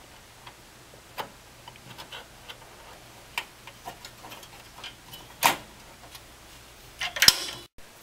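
Small clicks and taps of a PCIe card and its metal bracket being worked down into an expansion slot of an open desktop PC chassis, with a louder knock about five and a half seconds in and a short clatter near the end.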